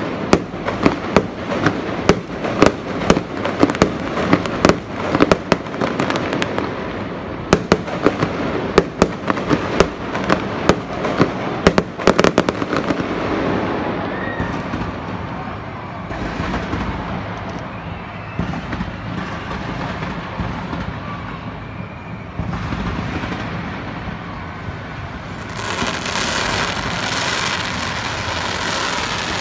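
Fireworks display: a rapid run of sharp bangs and crackles, several a second, for about the first twelve seconds. Then the bangs stop and a steady hissing rush carries on, growing brighter about four seconds from the end.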